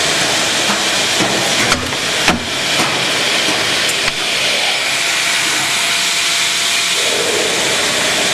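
Steady, loud hissing with a few sharp clicks about two, two and a half and four seconds in.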